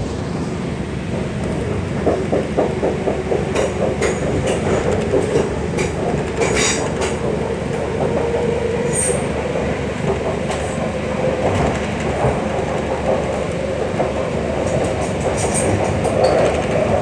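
MTR Kwun Tong Line C-train running along the track, heard from inside the carriage: a steady rolling rumble with a steady tone underneath, and wheels clicking over rail joints and pointwork, most densely a couple of seconds in.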